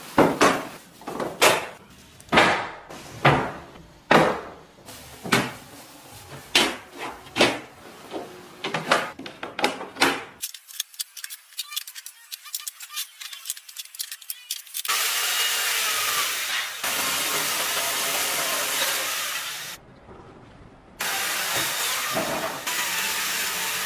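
Hand tool striking repeatedly, irregular sharp knocks about a second apart. Then, after a short pause, a power tool running with a steady noise in two long stretches.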